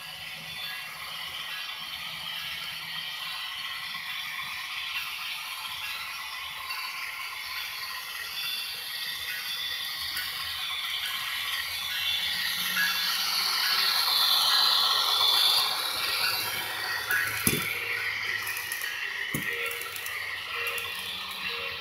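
Model freight train rolling along the layout's track, its wheels clattering and rattling over the rails. It grows louder as the cars pass close by, about two-thirds of the way through, and there are two sharp clicks later on.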